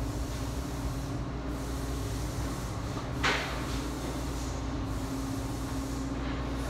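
Steady machine hum from a TIG welding setup at idle, with a single short clunk about three seconds in.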